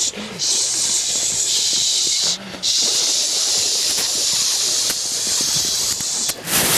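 Several people making a loud, sustained hissing 'shhh' with their mouths, broken by a few brief pauses for breath.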